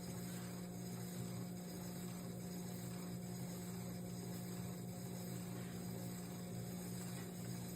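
Electric potter's wheel motor running with a steady low hum.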